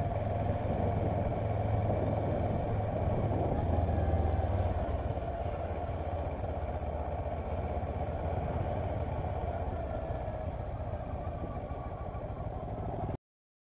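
Kawasaki Versys motorcycle riding along at steady speed, its engine running under wind noise on the on-board camera's microphone. The sound swells slightly a few seconds in, eases off later, and cuts off suddenly near the end.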